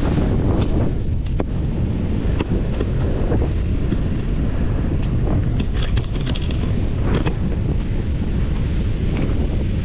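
Wind buffeting the microphone: a steady, heavy low rumble, with a few faint clicks and knocks scattered through it.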